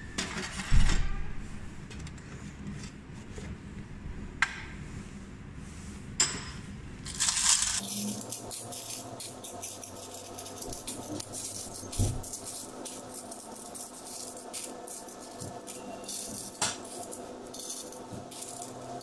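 Metal coins clinking and chinking as they are scooped by hand out of the plastic coin trays of a mechanical vending machine, in many quick clicks through the second half. A thump about a second in.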